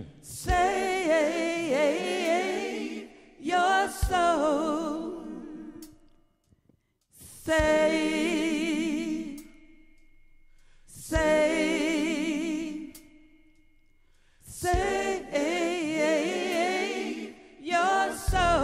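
A woman singing a gospel song unaccompanied: five long, wordless phrases with a wide vibrato, separated by short pauses. Just before the end, a backing track with bass comes in.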